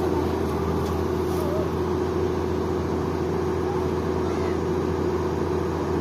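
MX152 rice combine harvester running steadily, its engine and threshing machinery giving a constant hum over a low drone.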